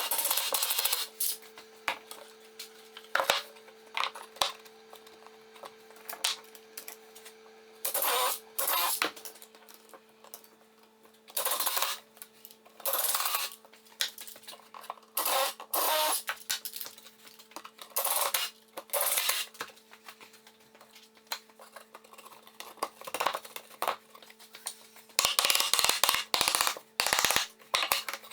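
Workshop tool work: short, noisy strokes or scrapes, each under a second, coming at irregular intervals with a quick cluster of them near the end, over a faint steady hum.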